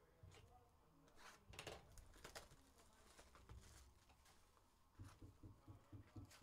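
Near silence, with faint clicks and rustles of cardboard trading-card boxes being handled and a box being opened.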